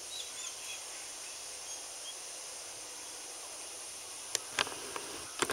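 Steady high hiss with a few faint bird chirps early on; from about four seconds in, several short sharp clicks and scuffs of footsteps as a person and two dogs set off walking on a sandy dirt path.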